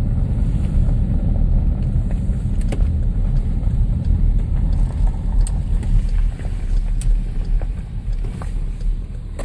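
Car cabin noise while driving slowly: a steady low rumble of engine and tyres on the road, with a few faint clicks.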